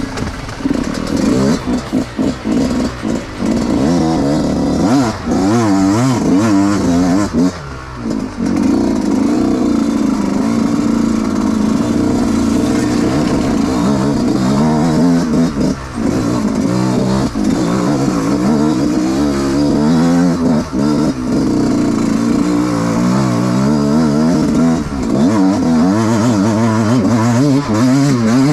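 Dirt bike engine being ridden on an off-road trail, revving up and down over and over as the throttle is worked, with brief drops about eight and sixteen seconds in.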